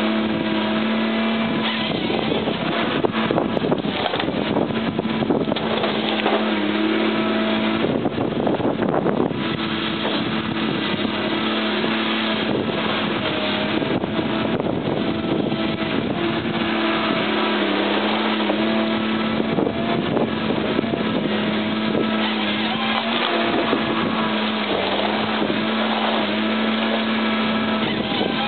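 Tigercat H855C tracked processor's diesel engine running steadily, its pitch sagging briefly now and then under hydraulic load. Rattling and knocking from the processing head handling logs, heaviest between about three and nine seconds in.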